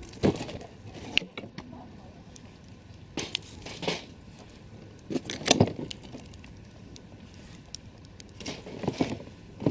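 Wood campfire crackling, with irregular sharp pops and snaps over a low steady hiss; the loudest snaps come about a quarter second, one second, four and five and a half seconds in.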